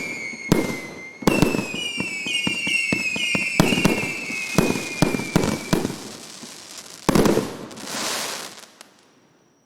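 A 300-shot, 1.2-inch firework cake firing rapid bangs mixed with several falling whistles. The shots thin out to a last loud bang about seven seconds in, followed by a crackling hiss, then it dies away.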